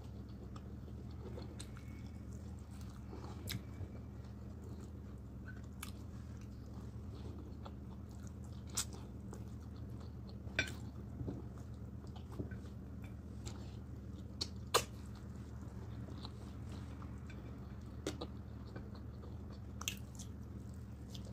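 Close-miked chewing and mouth smacks of a person eating stewed chicken with her fingers, with scattered sharp wet clicks, the loudest about two thirds of the way through, over a steady low hum.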